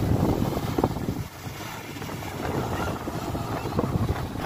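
A jet ski running as it carves spraying turns across the water, with wind buffeting the microphone throughout.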